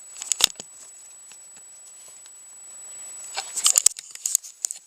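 Light clicks and rattles of small metal parts being handled as the clutch lever's pivot screw and nut are fitted. There are a couple of sharp clicks at the start and a quick run of them near the end.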